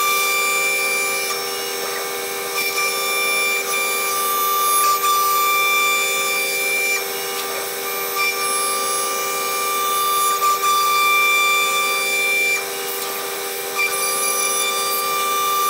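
CNC router spindle cutting a sheet of solid surface material: a steady high-pitched whine with several tones over the hiss of the bit cutting.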